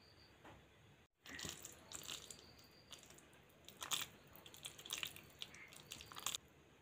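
Hands squeezing and shaping handfuls of shredded raw cabbage in a wet egg and gram-flour batter in a glass bowl, making faint, irregular squishes and crunches that stop near the end.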